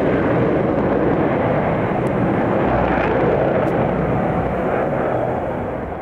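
Jet engine noise from a diamond formation of four MiG-29 fighters flying overhead: a steady, loud rushing sound that eases off near the end.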